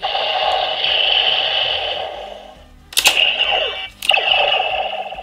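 Bandai Neo Decadriver toy belt playing electronic sound effects through its small speaker; the sound fades out about two seconds in. About three seconds in comes a sharp plastic click as the belt is worked, then another about a second later, and the electronic sound starts up again.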